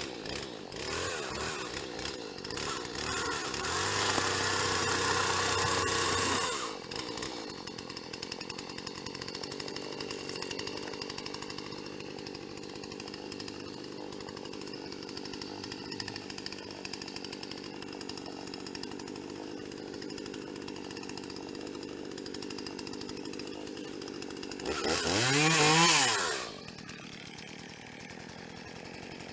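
Gas chainsaw running steadily at a low idle. It is revved up for a couple of seconds about four seconds in, and revved again near the end, its pitch rising then falling.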